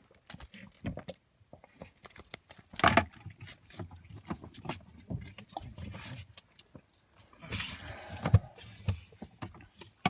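Close handling noise as a caught fish is taken off the hook and the hook is rebaited: scattered clicks and rustles, with two louder rustling bursts, about three seconds in and around eight seconds in.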